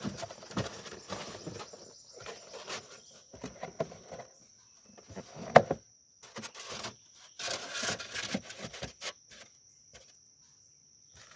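Cardboard shipping box being opened by hand: scattered scraping, rustling and handling knocks of cardboard and packing, with a sharp click about five and a half seconds in and a longer stretch of rustling near the end. A steady high insect drone, like crickets, runs underneath.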